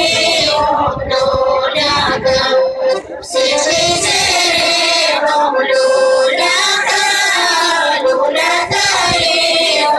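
Folk singing group, mostly women, singing together in long held notes, with a brief break for breath about three seconds in.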